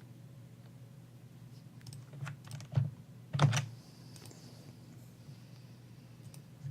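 A few light, sharp clicks and taps, the loudest about three and a half seconds in, over a low steady hum.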